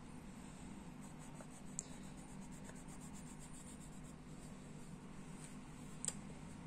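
Faint scratching of a coloured pencil shading on a colouring-book page, with two light ticks along the way.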